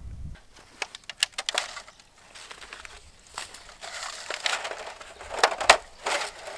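Thin black plastic seedling plug trays being handled and set down on dry grass: irregular crackling and clicking, with a sharp crack about five and a half seconds in.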